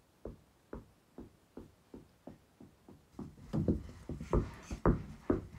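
Basketball being dribbled on carpet: a steady run of dull bounces, about two to three a second, that grow louder about three and a half seconds in.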